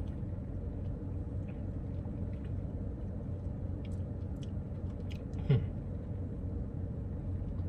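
A man sipping a soda from a paper fountain cup, with faint mouth clicks and swallows, over a steady low hum inside a car. A little after halfway comes one short throaty "mm" sound.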